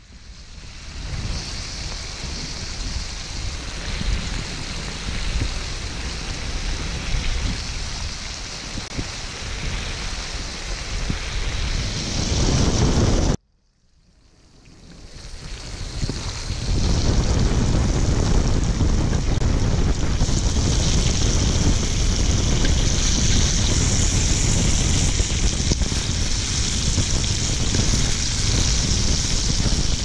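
Octopus and yardlong beans sizzling in hot oil in a wok. The sizzle cuts off suddenly about halfway through, then fades back in and runs steady.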